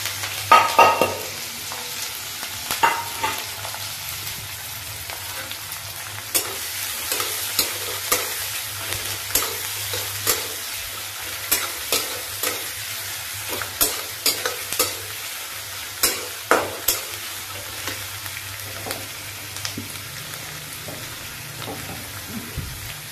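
Chopped onions and green chillies sizzling in hot oil in a steel kadai, stirred with a steel spatula that scrapes and clinks against the pan at irregular moments. The loudest burst comes about a second in.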